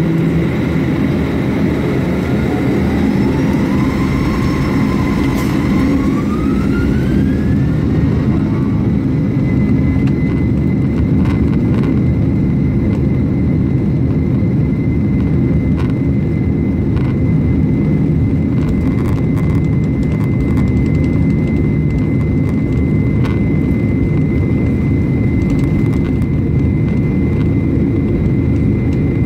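Jet airliner's engines spooling up to takeoff thrust, heard from inside the cabin: a whine rises over the first several seconds and then holds as a steady high tone over a loud, steady rumble through the takeoff roll.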